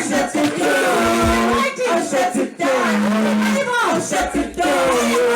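Gospel worship song: singing with held, sliding notes over an instrumental backing, with bass notes coming in about four seconds in.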